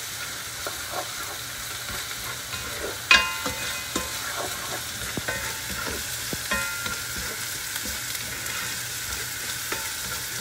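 Diced onion and garlic frying in oil in a nonstick pan, sizzling steadily as a spoon stirs and scrapes through them, with small clicks throughout and two sharper knocks of the spoon on the pan about three and six and a half seconds in. They are being sautéed until fragrant, before the meat goes in.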